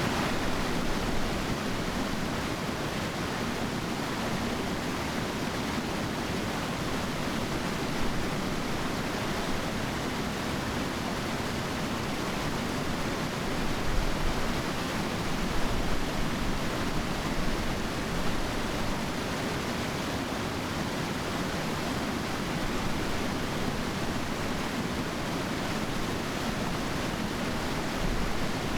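Steady rush of a river's running water, an even wash of noise without pause.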